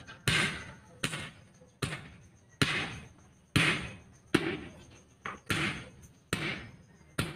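Hammer blows on a truck tyre's steel rim and tyre tool, struck by hand to break the bead and work the tyre off. The strikes come about once a second, each sharp and fading quickly.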